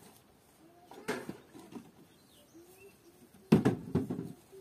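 Scythe swishing through weeds and grass: one stroke about a second in and a quick run of two or three strokes near the end. A bird coos faintly between them.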